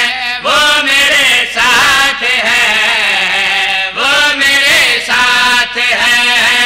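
Men chanting a devotional Punjabi qasida into a microphone, in long sung phrases that rise and fall with short breaks between them.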